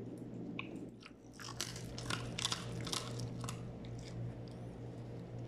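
Border collie chewing food, a run of short crunching clicks that come thickest from about a second and a half in.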